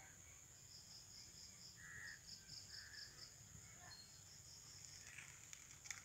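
Insects calling on the forest floor: a steady high-pitched buzz with a faster pulsing chirp repeating several times a second. Two short calls come around two seconds in, and there are a few faint clicks near the end.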